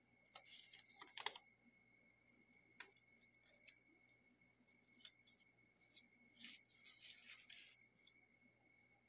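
Paper pieces rustling and crinkling as they are handled and tucked into place on a junk journal page, with small clicks and taps. The handling comes in two clusters, one at the start and another about six and a half seconds in, with a few single ticks between, over a faint steady high-pitched tone.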